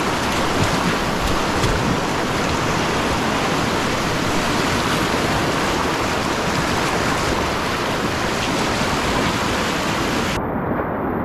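Whitewater rapid rushing and churning around a kayak, a loud steady roar of broken water. About ten seconds in the hiss of the sound cuts out abruptly, leaving a duller rush.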